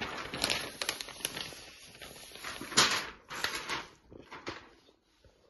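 Rustling and crinkling of the non-woven protective wrap on an upturned velvet armchair as it is handled, with scattered sharp clicks and a louder knock just under three seconds in. It dies away shortly before the end.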